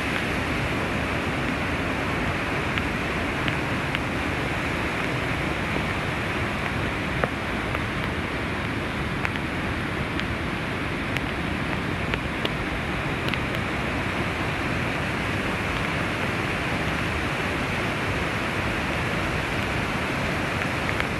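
Floodwater rushing over a dam's overflow spillway in heavy rain: a steady, dense rush of water noise with no let-up, with a few faint ticks scattered through it.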